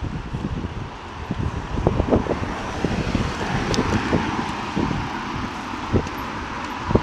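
Rushing wind buffeting the microphone on a road bike during a fast downhill run, with a steady roar of air and frequent low thumps from gusts.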